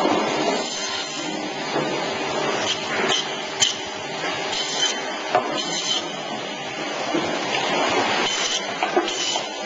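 TBS meat bandsaw running and cutting through meat and bone, with the blade's note rising in short spells as it bites. Sharp knocks and clinks from handling on the line are mixed in, the sharpest about three and a half seconds in.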